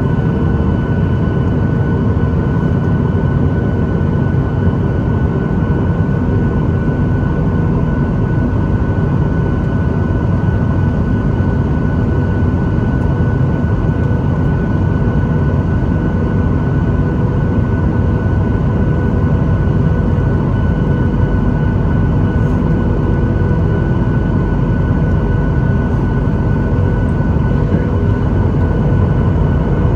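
Jet airliner noise: a steady low rumble with faint steady whines above it, unchanging throughout.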